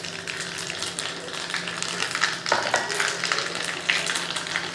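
Cumin seeds, fenugreek seeds and a dried red chilli sizzling and crackling in hot mustard oil in a small tadka pan, stirred with a spoon near the end.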